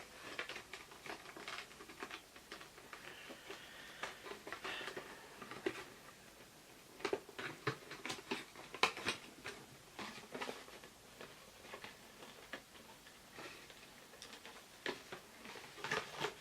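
Irregular small clicks, scratches and rustles of hands working a doll free of its cardboard backing card. The clicks grow sharper and more frequent about halfway through and again near the end.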